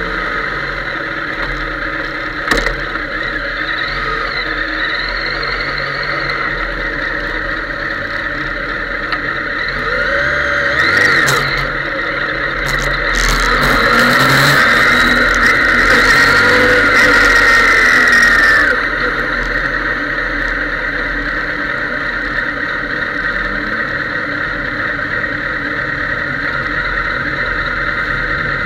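Sports motorcycle engine heard through an onboard camera behind the fairing. It idles, then from about ten seconds in it revs up and down as the bike pulls away along the pit lane, the loudest part, and settles back to a steady idle for the rest.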